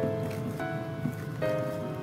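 Background instrumental music: a melody of held notes changing about every half second.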